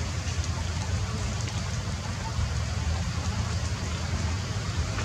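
Rain falling and dripping on forest leaves, an even steady patter with faint scattered drips, over a constant low rumble.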